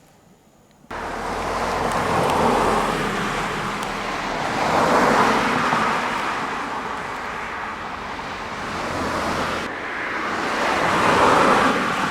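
Road traffic: a few cars passing one after another, their tyre and engine noise swelling and fading about four times. It starts abruptly about a second in.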